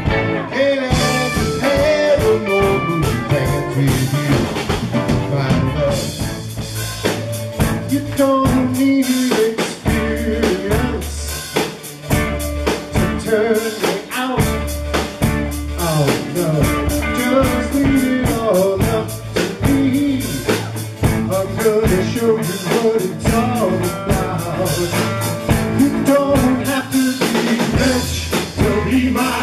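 Live blues-rock band playing: electric guitars, bass guitar, keyboard and drum kit, with drum hits keeping a steady beat.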